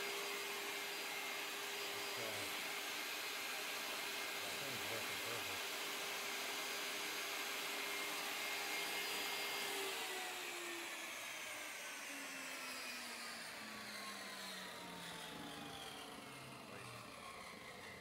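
Table saw spinning a 10-inch Freud glue line rip blade freely at full speed with a steady whine, then switched off about ten seconds in, the pitch falling as the blade coasts down. The blade, its arbor hole opened from 5/8 inch to 30 mm, runs smoothly, a sign the new hole is on center.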